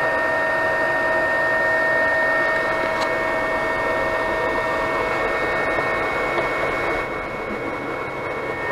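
Anycubic Chiron 3D printer running mid-print: a steady whir from its cooling fans with a few steady high tones over it, dipping slightly in level near the end.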